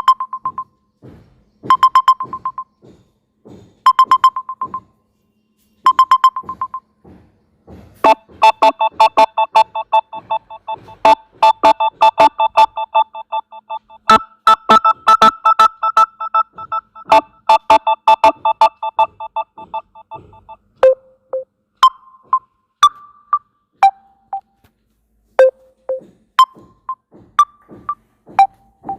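Samsung Galaxy M21 stock ringtones playing in succession, electronic synthesized tunes. The first plays a short chime about every two seconds with soft clicks between. About eight seconds in it gives way to a fast pulsing run of chords. Near the end come short notes jumping between pitches.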